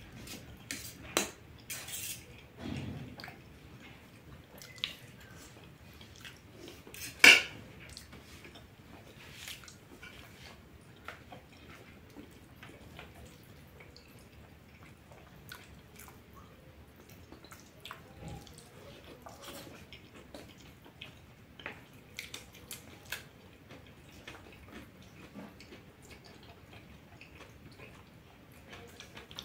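Eating at a table: a metal spoon clinking and scraping on a stainless steel plate, with chewing and lip smacks in between. Short clicks come scattered throughout, and one sharp clink about seven seconds in is the loudest.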